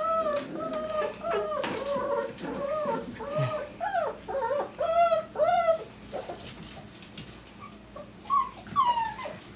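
Five-week-old poodle puppy whining over and over to be let out of its pen and given attention: a string of short whines that rise and fall in pitch, closely spaced for about six seconds, then a few fainter ones near the end.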